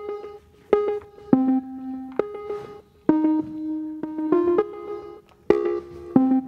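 Background music: a slow melody of single plucked or struck notes, one or two a second, each ringing out briefly.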